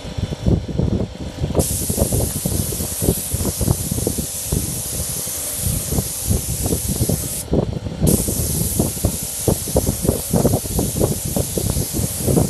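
Gravity-feed air spray gun spraying paint: a steady, loud hiss of compressed air and atomised paint that starts about a second and a half in, stops briefly about halfway through as the trigger is released, then starts again. An uneven low rumble runs underneath throughout.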